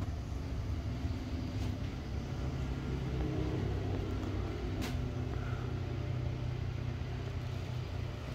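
An ATV's engine passes on a wet road, swelling toward the middle and fading, over a steady low rumble of storm wind. Two sharp clicks stand out, one early and one about five seconds in.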